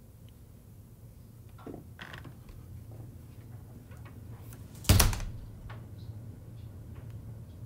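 A house door being handled and shut: a few small clicks about two seconds in, then one loud bang as it closes.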